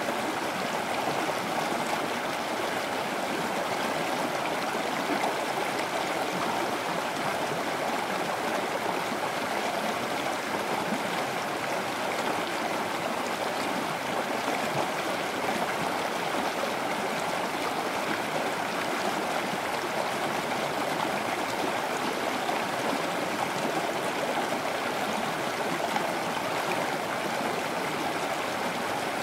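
Running water rushing in a steady, even wash that does not change.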